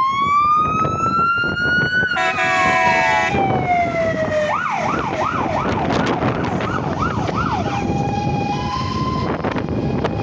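Fire engine siren winding up in a rising wail, cut across about two seconds in by a horn blast of about a second, then falling away. It switches to a fast yelp of about three sweeps a second, and near the end to a two-tone hi-lo, over the truck's diesel engine as it pulls away.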